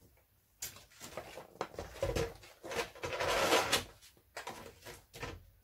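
Cardstock and craft tools handled on a tabletop: scattered light knocks and taps, and a longer scraping slide of the sheet about three seconds in.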